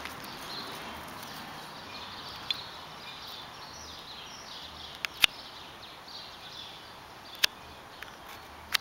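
Outdoor ambience: a steady hiss with faint bird chirping, broken by several sharp clicks, the loudest about five seconds in.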